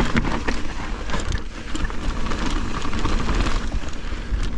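Downhill mountain bike descending fast over a rough dirt trail: tyre noise and a steady rumble of wind on the microphone, with many quick rattles and clicks from the bike over the bumps.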